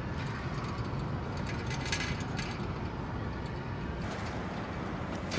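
Steady low outdoor rumble of road traffic, with a few faint crackles.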